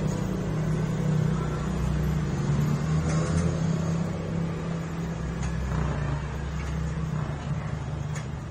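Steady low hum of a motor vehicle engine running, with a few faint clicks.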